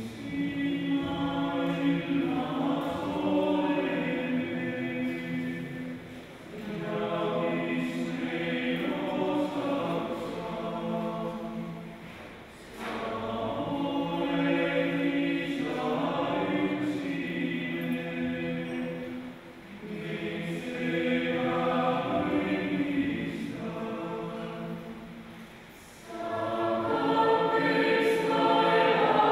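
Mixed youth choir singing in long phrases, with short dips between them every six or seven seconds.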